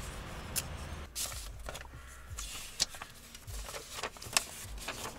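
Paper rustling and crinkling as an envelope is opened and the letter inside handled, in short irregular bursts with a few sharper clicks.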